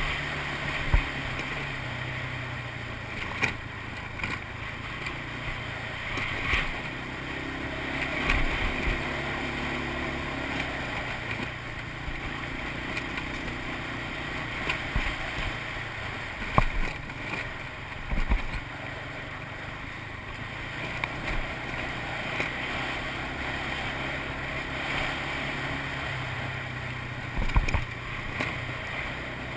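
ATV engine running steadily under way on a rough trail, with scattered sharp knocks and bumps.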